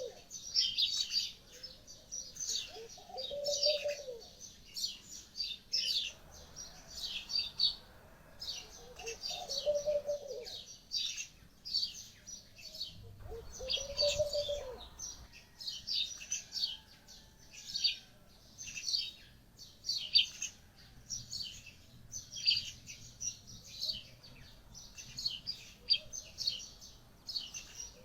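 Small birds chirping in quick, repeated bursts, with a lower, rounder call a few times in the first half.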